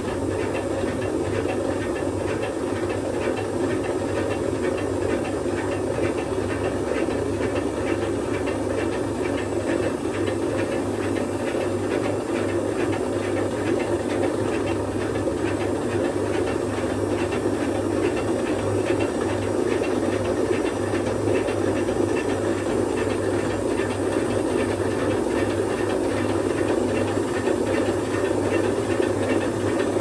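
Dyson washing machine on a spin, its motor and gearbox running with a steady whirring drone and hiss that gets a little louder in the last few seconds. The machine is stuck in contrarotate mode, so the motor has to spin the pulley much faster than on a normal spin to turn both drums.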